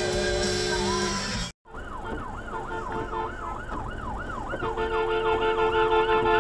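A stretch of music ends in a brief cut to silence, and then an emergency vehicle siren wails in a fast rising-and-falling yelp, about four cycles a second. Steady horn-like tones join it about two-thirds of the way in, and the whole sound grows louder.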